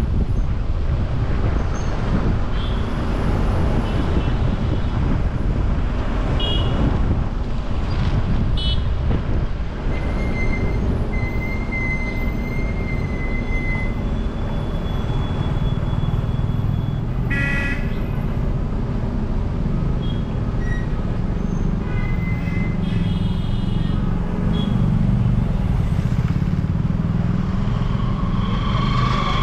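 Car on the move, a steady rumble of engine, tyres and wind, with vehicle horns tooting briefly several times: one a little past halfway, another a few seconds later and one at the end.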